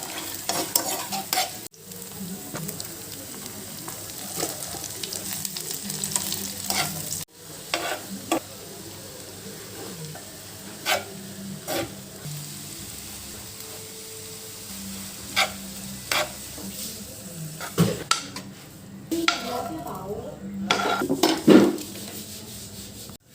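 Cabbage stir-frying in a pan: a steady sizzle, with a spatula scraping and knocking against the pan every second or so.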